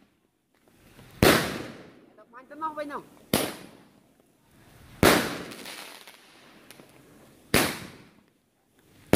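Seven-shot Roman candle firing its shots one at a time: four sharp bangs about every two seconds, each trailing off over about a second, with another bang right at the end.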